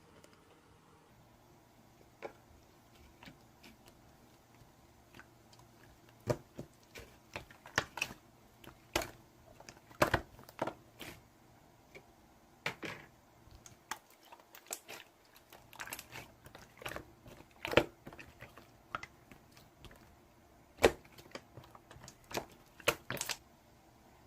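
Slime being squished and pressed by hand, making irregular sharp clicks and pops from trapped air, sparse at first and then in clusters of several a second.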